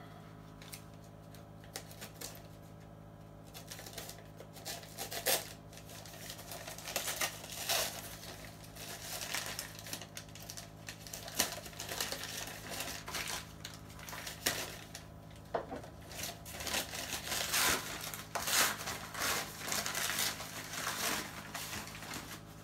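Packaging being unwrapped by hand to get a shipped orchid out: irregular crinkling, rustling and tearing of wrapping. It starts a few seconds in and gets busier after about ten seconds, over a faint steady low hum.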